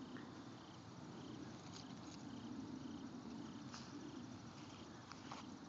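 Faint crickets chirping in a steady rhythm, a little under two chirps a second, with a few faint clicks.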